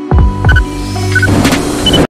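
Retro film-countdown sound effect: short high beeps repeating about three times a second over deep booms that drop in pitch, with a burst of hiss in the second half before it cuts off suddenly.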